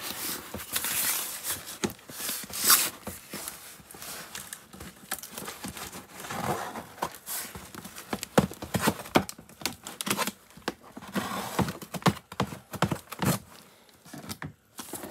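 Cardboard shipping box handled and turned over in a plastic tub: irregular knocks, taps and scrapes of cardboard against plastic, with some rustling.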